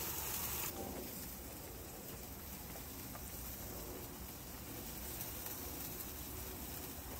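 Meat sizzling on a barbecue grill, a high hiss that falls away within the first second, leaving faint steady background noise.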